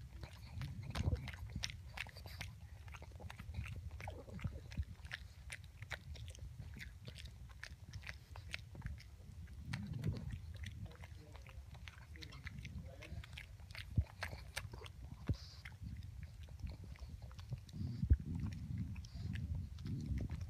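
Pug licking and mouthing at a chew treat: a run of small wet mouth clicks and smacks throughout, with low snuffling swells now and then.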